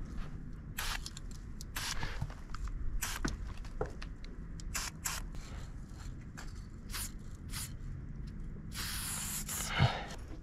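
Aerosol spray paint can hissing in short spurts, roughly one a second, as pink paint goes onto a bus panel, then a longer spray about nine seconds in. A single sharp knock near the end is the loudest sound.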